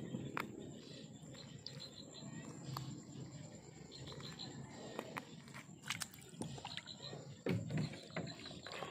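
Close handling noise of hands untangling a fish from a nylon gill net: rustling and scattered sharp clicks, with a louder thump about seven and a half seconds in. A thin steady high tone and short high chirps sit behind it.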